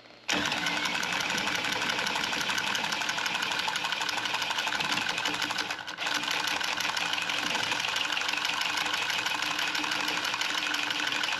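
Cordless power tubing cutter running as it spins around a copper refrigerant line and cuts through it: a steady, loud motor whir that starts abruptly and dips briefly about halfway through.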